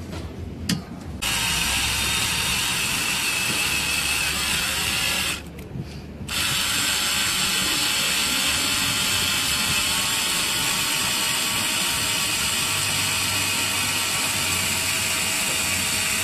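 Mini cordless screwdriver running in two bursts. The first starts about a second in and lasts about four seconds, turning a nut with a socket. After a short stop, the second runs steadily for about ten seconds while the bit bores into a wooden board.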